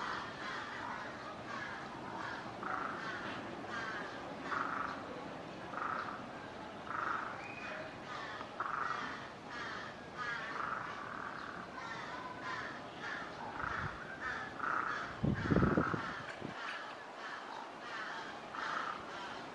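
A series of short animal calls repeating roughly once a second, with a single loud low thump about three-quarters of the way through.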